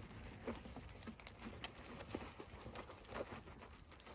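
Faint, irregular soft squelches and ticks of a soapy wash mitt being rubbed around a car's fuel filler flap and wet paintwork, a little louder about half a second in and again about three seconds in.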